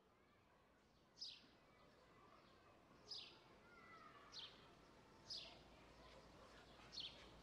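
Faint bird calls: a small bird repeats a short, high chirp that falls in pitch, five times, a second or two apart, over faint outdoor background noise.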